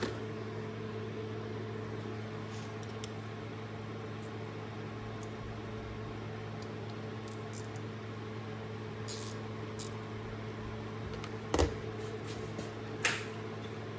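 Steady low hum in the room, with a few light clicks and taps of a T8 Torx driver on the cover-plate screws of a Snap-on 3/8 ratchet, and one sharper knock a little before the end.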